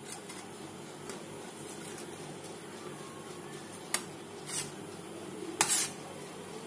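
Toasted sandwich pieces and a metal spatula scraping and clicking against a steel plate as they are moved: a sharp click about two thirds of the way in, then two short scrapes, the last one the loudest. A steady low hum runs underneath.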